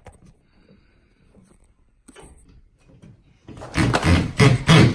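Light clicks and knocks as a steel TV mount bracket is handled against the wall. About three and a half seconds in, a Milwaukee Fuel cordless driver starts loud, driving a lag bolt through the bracket into a wall stud.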